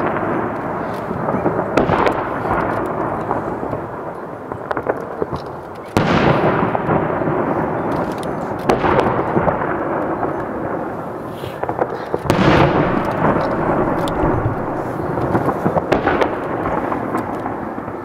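Aerial fireworks shells bursting: a series of loud booms, each trailing off in a long rolling echo, with crackling between them.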